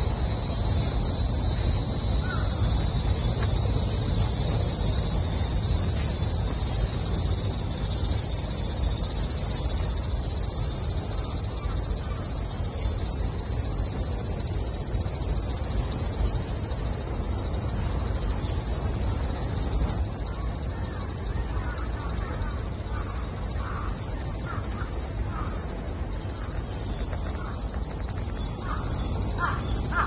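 A chorus of cicadas singing steadily on a high, shrill pitch. About twenty seconds in, one voice in the chorus falls in pitch and then stops suddenly. Faint short bird calls come near the end.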